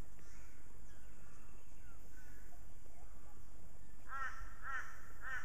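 A crow cawing three times in quick succession near the end, over faint bird chirps in the background.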